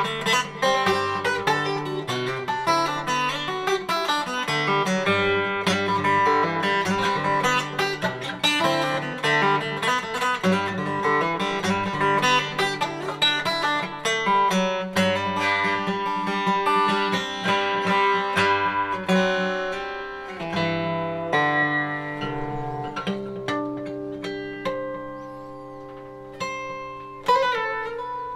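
Acoustic guitar played solo: separate plucked notes over changing bass notes, growing softer in the last several seconds.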